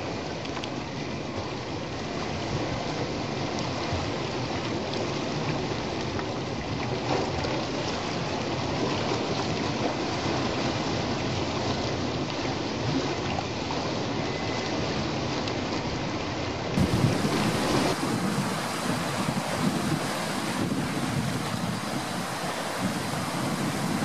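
Sea waves washing and breaking over rocks on a rocky shore, a steady rushing surf. About two-thirds of the way through, the sound cuts to another recording where the surf continues with gusty wind rumbling on the microphone.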